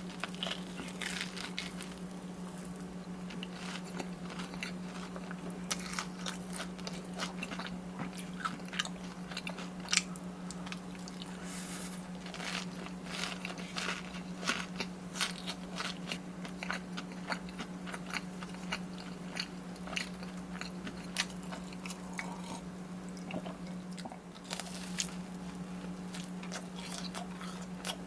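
Close-miked eating of fried Korean street food, corn dogs and cheese balls: irregular crispy crunching bites and chewing, with a steady low hum underneath.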